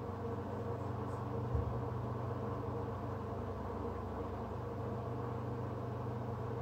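Steady low machine hum made of several constant tones, with a faint hiss over it and one soft knock about a second and a half in.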